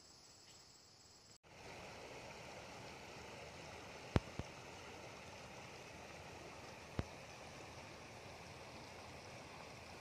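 Faint steady chirring of insects such as crickets, cut off abruptly about a second and a half in by a shallow river running steadily over a gravel and pebble bed. Three sharp clicks sound over the water, two close together near the middle and one a few seconds later.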